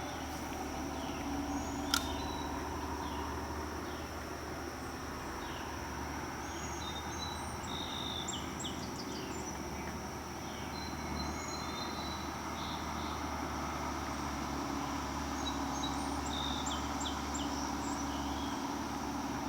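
Creek ambience: a steady rush of flowing water under a constant high insect drone, with many short bird chirps scattered throughout. A single sharp click comes about two seconds in.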